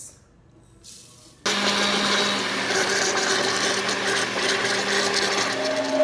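Electric countertop blender switched on about a second and a half in, its motor then running steadily at full speed as it blends coconut milk with grated coconut. The motor's pitch shifts slightly near the end.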